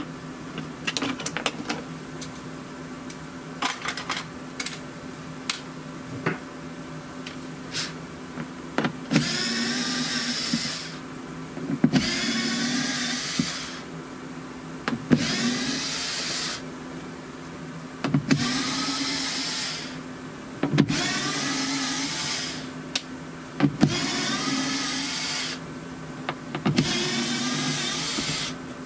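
Small handheld power tool run in short bursts of one to two seconds, seven times over, each start with a rising whine as the motor spins up, used to clean up milled plywood parts. Before that, scattered clicks and knocks of the parts being handled, over a steady background hum.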